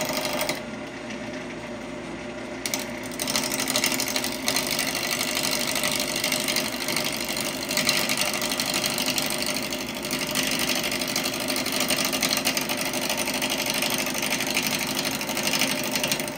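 Wood lathe running steadily while a bowl gouge cuts a spinning glued-up hardwood blank. The scraping of the cut eases off about half a second in and comes back, fuller from about four seconds on, falling away at the very end.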